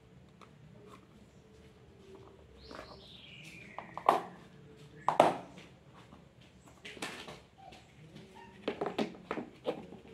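Packaging being handled while unpacking: white foam packing and plastic lids rustling and knocking, with sharp knocks about four and five seconds in and a run of them near the end. About three seconds in, a single high cry falls steadily in pitch for about a second.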